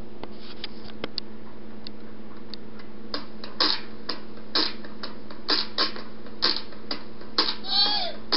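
Handling noise on a handheld camera: irregular clicks and taps of fingers against the device, sparse at first, then louder and more frequent from about three seconds in, over a steady low hum. A short squeaky gliding sound comes near the end.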